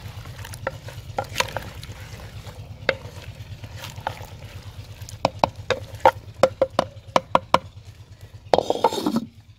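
Wooden spoon stirring chunks of potato, carrot and peas in a clay pot, knocking against the clay sides again and again, with a quick run of knocks about five to seven seconds in. A steady low hum lies under it, and a short sound falling in pitch comes near the end.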